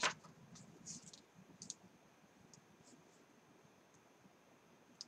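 Faint clicks and rustles of paper sheets being handled, thickest in the first two seconds, with one small click near the end.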